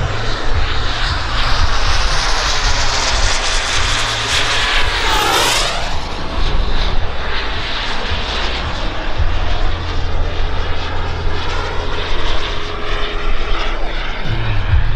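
Xicoy 132 model turbine engine of a scale F-35A RC jet on a fly-by. The whine and rush build as it closes in, then the pitch drops sharply about five and a half seconds in as it passes, and it carries on as a steady rush. A low, uneven rumble sits underneath.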